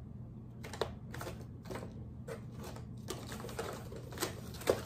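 Plastic fishing-lure packaging being handled: irregular short crinkles and clicks, sparse at first and coming faster in the second half.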